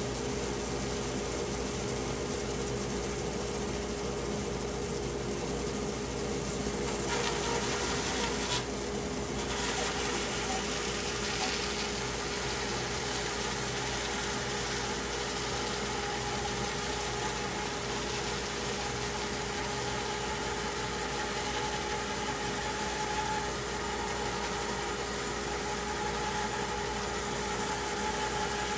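A machine running steadily with a constant, even hum.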